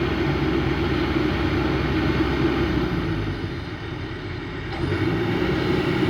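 Heavy diesel machinery running steadily. It eases off about three seconds in and comes back up a second and a half later.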